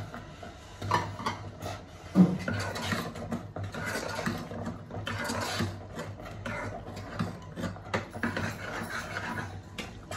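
Steel spoon stirring cubed potatoes and black-eyed peas through thick masala in a metal pot, scraping against the pot in repeated strokes. There is one sharp knock about two seconds in.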